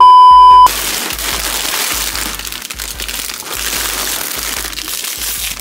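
A loud steady bleep tone for under a second, then an even hiss of TV-static noise over a thudding music bass beat.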